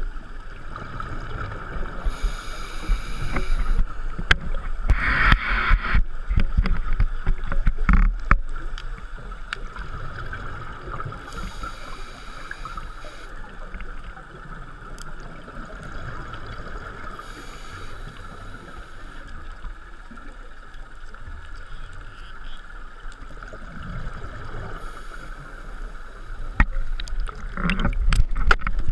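Underwater sound through a camera housing: a scuba diver's regulator breathing, with a hiss of about a second and a half every six to eight seconds and louder bubbling exhalations, over a steady muffled hum and scattered clicks.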